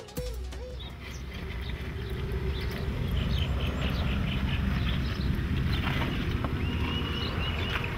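Outdoor field ambience: a steady low rumble with faint bird chirps, and a short high steady note near the end.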